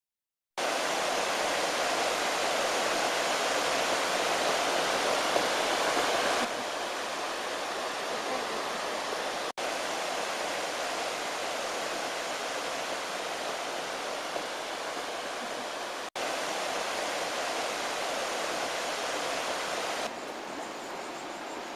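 Steady rushing of waterfalls pouring down rock into a pool. It starts about half a second in and briefly cuts out twice.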